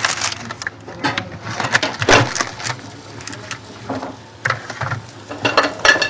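Dishes and utensils being washed in a kitchen sink under a running tap, with water splashing and irregular clinks and knocks of dishware.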